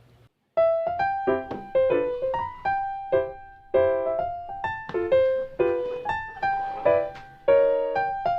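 Background music: piano notes struck in a quick melody, each one fading before the next, starting suddenly about half a second in.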